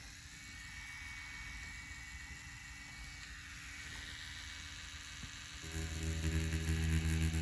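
Faint steady hiss, then a Spectra Flux rotary tattoo machine starts buzzing with a steady low hum about three-quarters of the way through as the needle goes back onto the orange peel.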